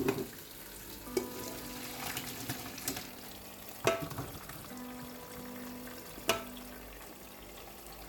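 Tap water running into a plastic colander in a stainless steel sink while a pot of boiled dove meat and broth is tipped out to drain, with a few sharp knocks of the metal pot.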